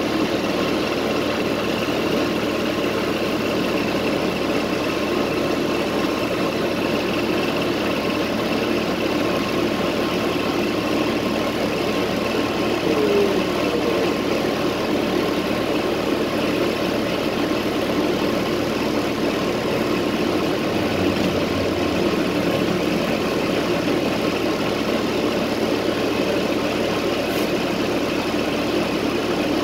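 Steady engine and drive noise of a Votran city transit bus heard inside its passenger cabin, an even drone with a faint steady whine on top.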